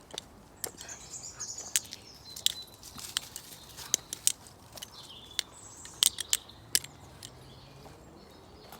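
Sharp, irregular clicks and clacks of a Nautilus-clone balisong trainer being flipped, its aluminium channel handles knocking shut and swinging on the pivot. Birds chirp faintly in the background.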